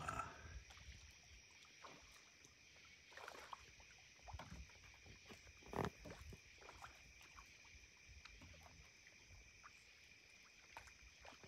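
Faint water sounds at the boat's hull: scattered soft knocks and splashes, the loudest about six seconds in, over a steady high-pitched whine.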